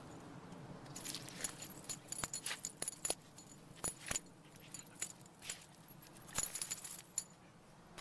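Small metal pieces jingling and clinking in irregular bursts of light clicks with a bright ring, loudest in clusters around the second, fourth and sixth-to-seventh seconds.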